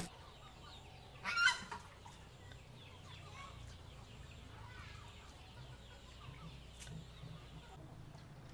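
A chicken gives one short, loud cluck about a second and a half in, then only faint background remains.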